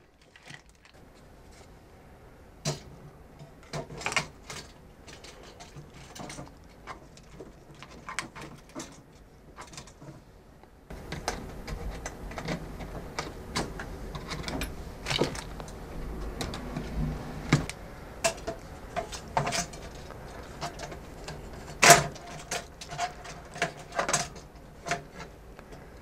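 Irregular clicks, taps and knocks of small network devices and their mounting brackets being handled and fitted into a compact equipment rack, with a screwdriver in use. The handling grows busier about halfway through, and a sharp knock a few seconds before the end is the loudest.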